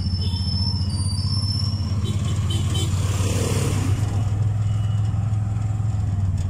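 Bajaj tricycle's small engine running with a steady, even hum.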